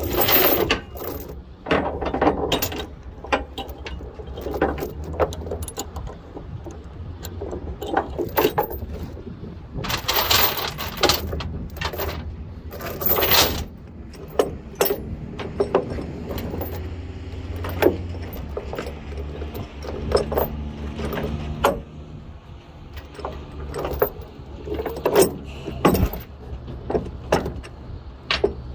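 Steel tie-down chains clinking and rattling as they are handled on a trailer deck, with runs of mechanical clicking from a ratchet chain binder being worked to tighten the chain.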